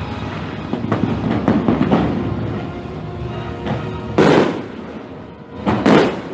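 Fireworks exploding: lighter pops in the first two seconds, then two loud booms about four and six seconds in, over the show's music soundtrack.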